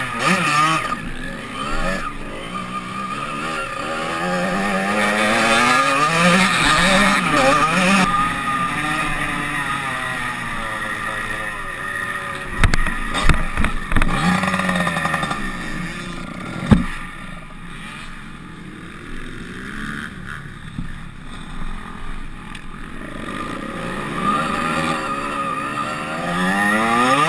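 Onboard sound of a motocross bike's engine revving up and down repeatedly as it is ridden round a dirt track. A few sharp knocks come about halfway through and another a few seconds later. The engine is then quieter for several seconds before revving up again near the end.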